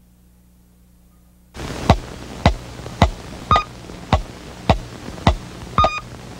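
Electronic sound-effect music: a regular pulse of sharp clicks, a little under two a second, with a short beep on every fourth click, over a steady hiss. It starts suddenly about a second and a half in, after a faint low hum.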